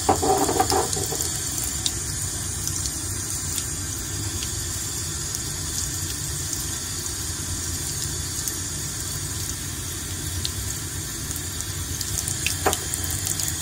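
A thin stream of tap water running steadily into a sink and over a glass lab bottle that is turned under it. The water is cooling the hot, freshly melted agarose gel inside. A single light knock comes near the end.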